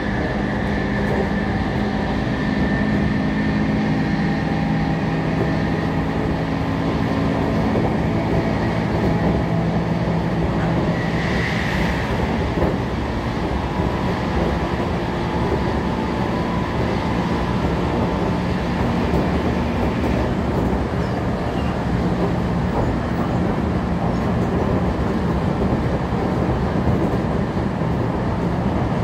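Running noise inside a JR Kyushu 811 series electric motor car (MoHa 811) travelling at speed between stations: a steady hum from the motors and running gear, mixed with rail noise. There is a brief rush of hiss about eleven seconds in.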